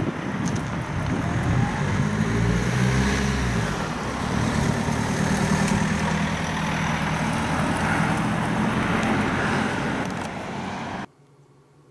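Steady low rumble of the Boeing 747-8F's four jet engines passing high overhead at cruising altitude, cutting off suddenly near the end.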